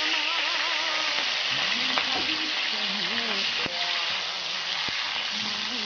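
Food sizzling loudly in hot oil, the frying set off suddenly just before and running on steadily while it is stirred, with a few sharp knocks. A sung melody plays faintly over it.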